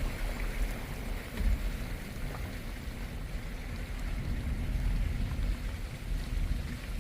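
Strong wind rumbling on the microphone over the steady hiss of rain.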